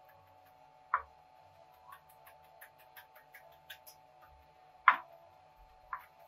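Chef's knife rocking through fresh rosemary on a plastic cutting board: a run of light ticks with a few sharper knocks of the blade on the board, the loudest about five seconds in, over a steady hum.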